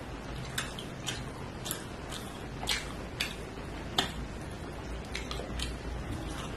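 Mouth sounds of chewing soft fried egg: irregular wet clicks and lip smacks, one or two a second, with a sharper click about four seconds in.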